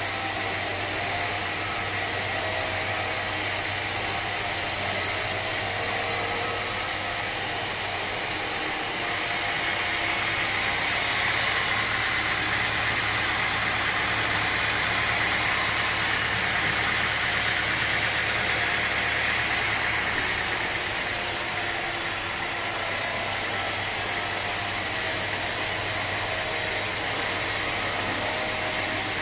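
Sawmill machinery running steadily with an engine-like drone. It gets slightly louder and changes in tone for about ten seconds in the middle, then returns to the earlier steady sound.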